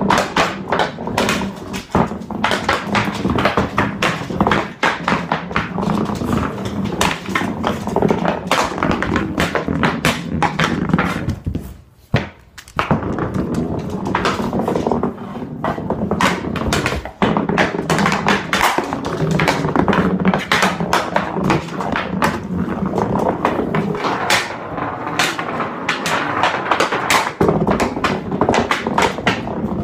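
Quick, irregular taps and knocks of a hockey stick blade on a hardwood floor during stickhandling, with a short break about twelve seconds in.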